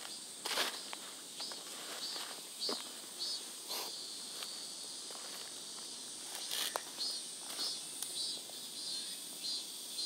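Outdoor insect calling: a steady high-pitched drone with short chirps repeating about twice a second, in two runs. Footsteps brushing through grass and weeds can be heard with it.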